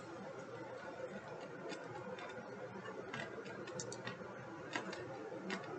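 Low steady room hiss from the recording microphone, with a handful of light computer-mouse clicks scattered through it, most of them after about three seconds in.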